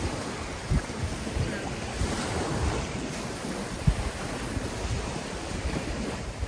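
Small waves washing against a rocky shore, with wind buffeting the microphone in a few low thumps, the strongest a little before the four-second mark.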